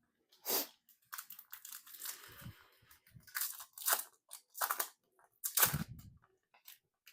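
Foil booster pack wrapper being torn open and crinkled in the hands: a run of sharp crackles and rustling, with a loud crinkle about half a second in and several more between three and six seconds in.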